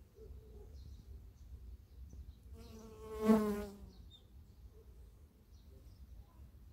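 A honeybee buzzing close past the microphone near the middle: one brief buzz that swells and fades over about a second and a half.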